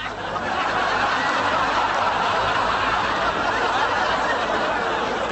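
Audience laughter from many people, swelling in the first half second and then holding steady.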